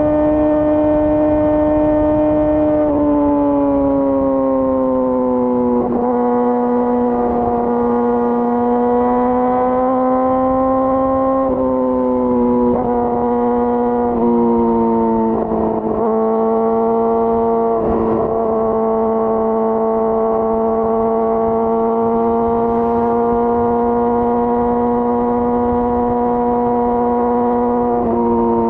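2018 Yamaha R6's inline-four engine through an Akrapovič full exhaust, running steadily at high revs under way. Its pitch holds high and steps down slightly several times as the throttle or gear changes.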